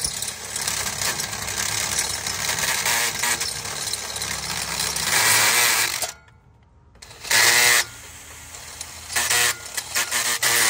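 Cordless drill boring out a bolt hole so a larger caliper bolt will fit. It runs continuously for about six seconds, stops suddenly, then is given several short bursts that spin up and wind down.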